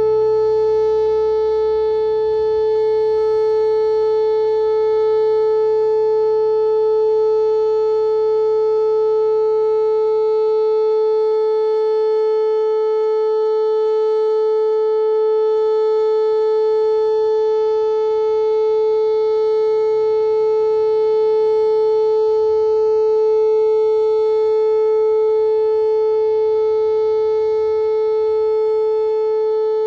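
Whelen WPS 2909 electronic outdoor warning siren sounding its Alert signal: one loud steady tone held at a single pitch with no rise or fall. A faint low rumble underneath dies away about halfway through.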